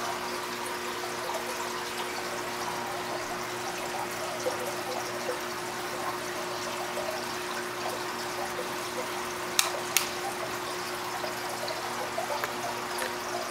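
Aquarium water trickling and splashing steadily, as from the filter return into the tank, with a steady low hum beneath it. Two sharp clicks close together about ten seconds in.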